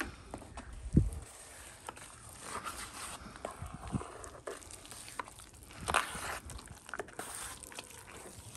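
Steel drywall knife scraping and working damp 5-minute setting-type joint compound powder in a metal mud pan, a run of short crunchy scrapes and clicks as the wet and dry powder is mixed. One heavier thump about a second in.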